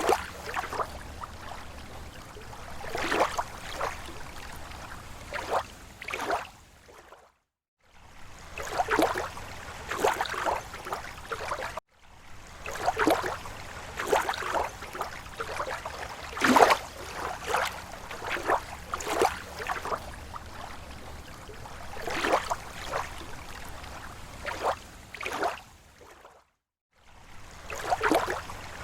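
Small, slow waves lapping against a lake shore: irregular soft splashes and sloshes every second or so. The sound cuts out completely for under a second twice.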